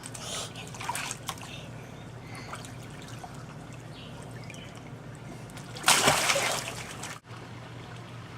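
Water splashing in a swimming pool: small splashes at the start and one loud splash about six seconds in, over a steady low hum and a trickle of running water.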